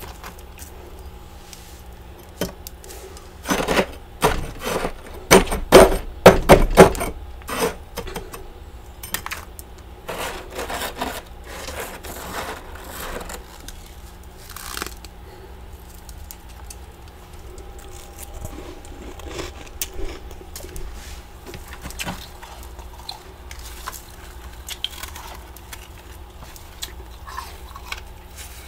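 Thick freezer frost being dug out and squeezed by bare hands: crisp crunching and crumbling, densest and loudest between about three and seven seconds in, then scattered lighter crunches. A steady low hum runs underneath.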